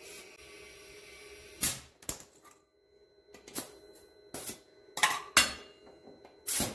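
Short, irregular bursts of compressed air hissing from an air-hose chuck at a tractor tire's valve stem as the tire is aired up, about seven in all, the longest near the end.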